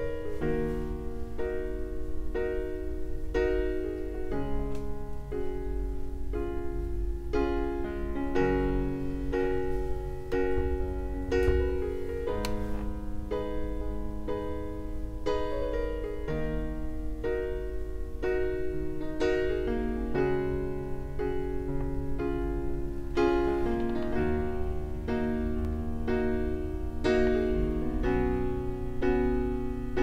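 Background piano music: a steady, unhurried run of notes and chords over a low bass.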